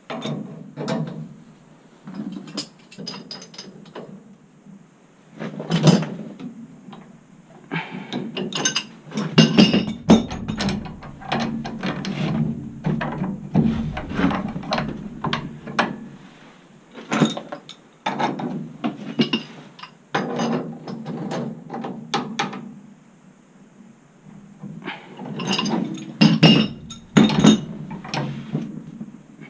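Hand tools working metal pipe fittings: irregular bursts of ratcheting clicks and metal clanks, with short pauses between bursts.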